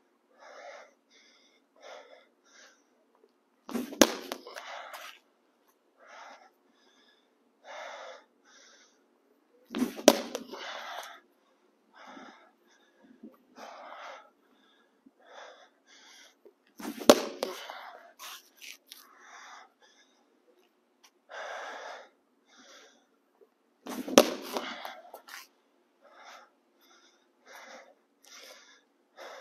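Four weighted plyo ball throws, one every six to seven seconds, each a sharp smack of the ball striking the wall inside a hard exhale of effort. Short breaths come between the throws.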